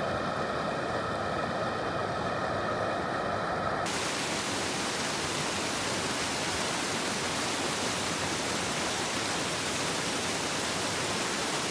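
A vehicle's engine hums inside the cabin for about four seconds, then a sudden cut brings a steady, even rush of fast-flowing creek water.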